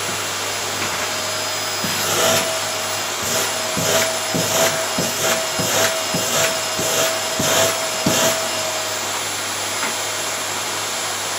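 Vacuum cleaner running on carpet, with rhythmic swishing surges about twice a second from about two to eight seconds in as it is worked over the carpet.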